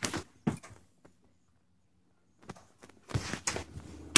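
Footsteps and camera handling: scattered light knocks and clicks, a short quiet gap about a second in, then more knocks and a sharper one near the end.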